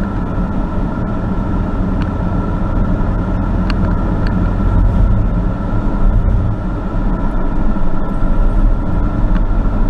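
1999 Chevrolet pickup's engine idling steadily, just started and running on a newly replaced fuel pump.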